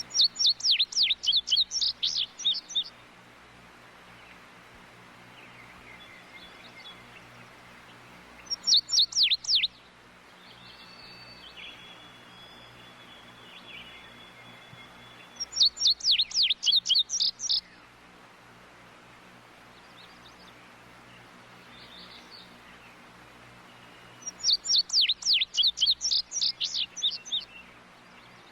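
A songbird singing four phrases, each a rapid run of short, high, down-slurred notes lasting one to three seconds, spaced several seconds apart. Faint outdoor background between the phrases.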